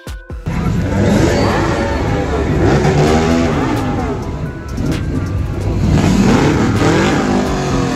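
Pickup truck engine revving loud and close, its pitch sweeping up and down in two long rises.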